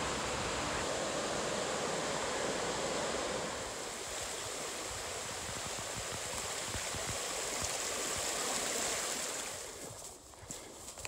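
Mountain creek rushing over rocks, a steady full rush that fades near the end as footsteps crunch through dry leaves.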